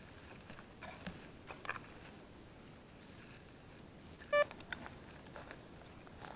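A single short electronic beep about four seconds in. Before it, faint scrapes and rustles of digging in forest soil.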